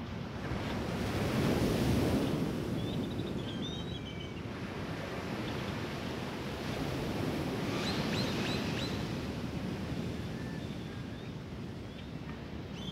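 Small surf washing onto a sandy beach, swelling as a wave breaks about two seconds in and again around eight seconds, with a few short high chirps.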